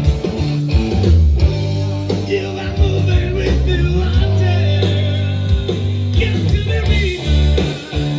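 Live rock band playing, with electric guitar, bass, drums and a singing voice, recorded from the crowd.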